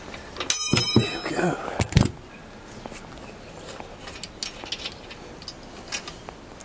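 Steel hand tools on a motorcycle engine mount. About half a second in, a metal tool strikes and rings briefly with a bright, bell-like tone. A few sharp knocks follow around two seconds in, then light clicks and taps of the tools on the frame.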